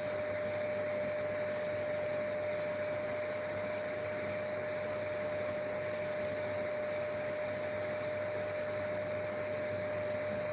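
A steady, even hiss with a constant high-pitched hum through it, no drops, gusts or changes.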